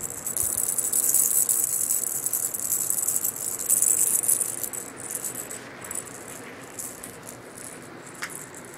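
Cat toy rattling in quick, irregular shakes, strongest in the first half and weaker over the last few seconds.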